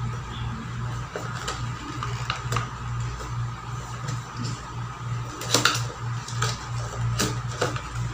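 Microphone's cardboard box and packaging being opened by hand: a scattered run of short rustles, clicks and taps, sharpest about five and a half seconds in, over a steady background hum.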